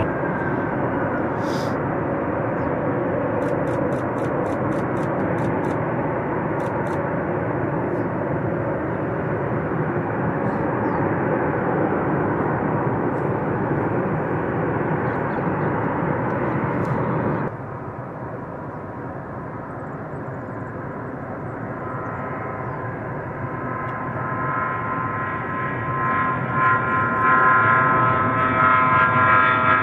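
Fairchild Republic A-10 Thunderbolt II jet noise, steady for a long stretch, then cut off abruptly to a quieter level. The high whine of the A-10's twin General Electric TF34 turbofans then rises and grows louder as the jet speeds up along the runway for takeoff.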